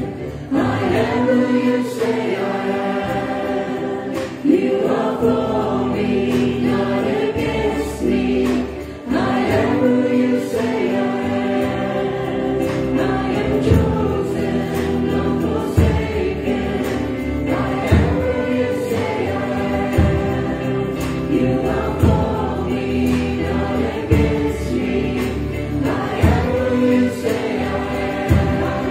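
Gospel worship music: a group of voices singing together over instrumental accompaniment, with a regular beat accented about every two seconds.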